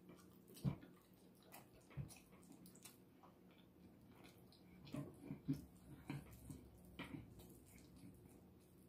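Faint, scattered clicks and soft knocks of someone eating rotisserie chicken by hand: chewing and handling the meat and bones. The sharpest come about two thirds of a second in and about two seconds in, with a small run of them around five seconds.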